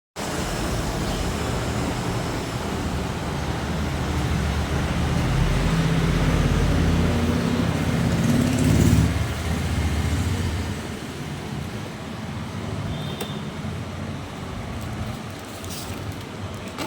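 Road traffic: a motor vehicle's engine rumbles past, building to its loudest about halfway through and then fading to a lower background hum.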